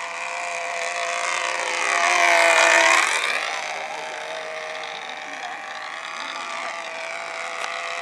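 Control-line stunt model airplane's small two-stroke engine running flat out, a high buzz that swells as the plane sweeps past about three seconds in and drops in pitch as it passes, then fades as it circles away and begins to build again near the end.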